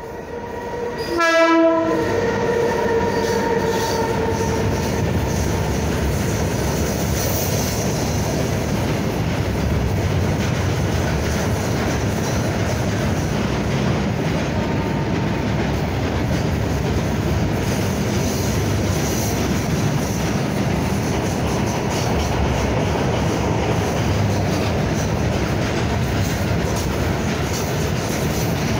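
A WAG-12 electric freight locomotive's horn is held for the first few seconds as it comes up. Loudness jumps about a second and a half in, and the rest is the steady noise of a long rake of freight wagons rolling past close by on the rails.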